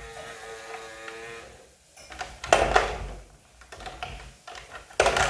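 Phil the Fridge toy fridge playing an electronic sound effect, a held tone lasting about a second and a half, followed by two sharp knocks, one near the middle and one near the end.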